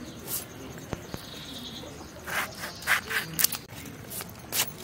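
Fish being cut on an upright bonti blade: a run of short rasping cuts as the blade goes through skin and bone, one near the start and a quick series of about six in the second half.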